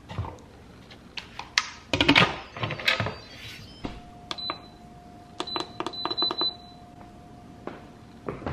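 Instant Pot electric pressure cooker's control panel beeping as its buttons are pressed: several short high beeps with the clicks of the keys. A clatter of handling comes a couple of seconds before the beeps.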